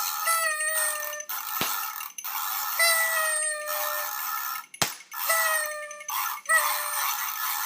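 Party horn noisemakers blown in buzzy blasts of about a second each, one after another with short gaps. Two sharp pops from party poppers come about one and a half seconds and about five seconds in.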